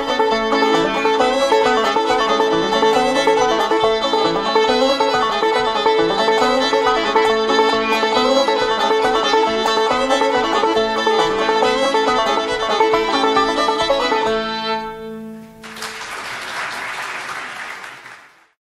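Old-time string band music: clawhammer banjo and fiddle playing a tune over a steady drone note. The tune ends about 15 seconds in and is followed by a few seconds of applause.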